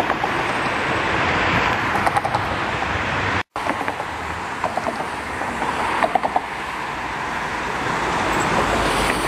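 Steady city street traffic noise with vehicles passing, broken by a brief dropout about three and a half seconds in.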